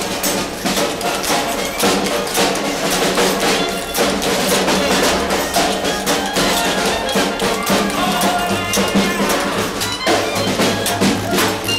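Hot jazz band playing a New Orleans-style parade march live on the move: washboard, tambourine and snare drum keep a brisk, steady beat under brass horns.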